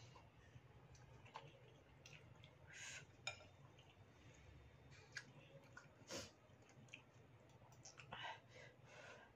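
Faint eating sounds: a metal fork and spoon clicking against a bowl now and then, with short bursts of slurping and chewing noodles over a faint low room hum.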